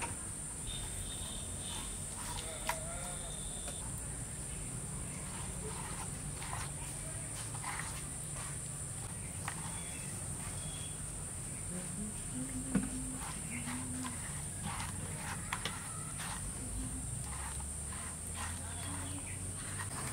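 A bare hand mixing wet spice paste over raw fish pieces in a clay plate: soft squelches and many small clicks, over a steady high hiss.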